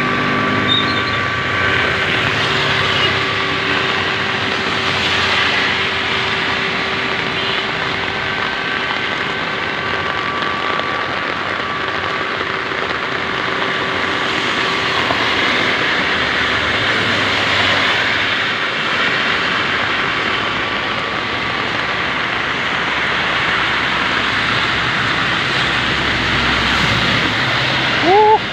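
Swollen river in flood, its water rushing in a steady, unbroken wash of noise, the sign of a fast-rising flow. A brief rising tone sounds near the end.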